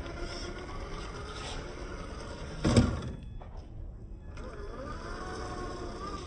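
Electric motor and gears of a Traxxas TRX-4 RC rock crawler whining, the pitch rising and falling with the throttle as it crawls. A loud knock comes about two and a half seconds in.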